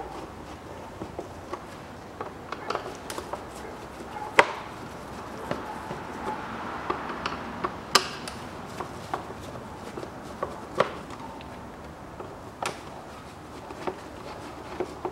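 Irregular clicks and knocks of a Phillips screwdriver and gloved hands on the plastic air-filter housing lid while its four self-tapping screws are undone, the sharpest knocks at about four, eight and eleven seconds in.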